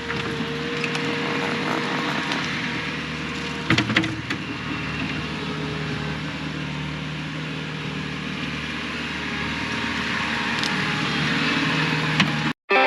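Diesel engine of heavy digging equipment running steadily as it works, with a short clatter about four seconds in. The sound cuts off abruptly just before the end.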